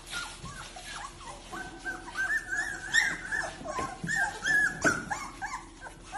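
A litter of young puppies crying: many short high-pitched cries overlapping one another, thickest from about a second and a half in, with a few sharp knocks among them.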